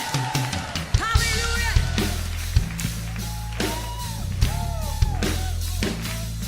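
Music: a song with drums, bass and guitar, with a sung or bending melodic line above.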